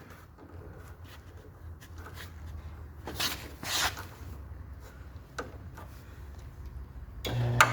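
Hands handling the treadmill's safety-key switch: rubbing and scraping noises, with two short louder scrapes about three seconds in, over a faint low steady hum.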